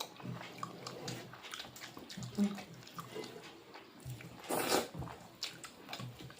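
Eating noises: soft chewing and mouth sounds with small clicks, and one short, louder rush of noise about four and a half seconds in.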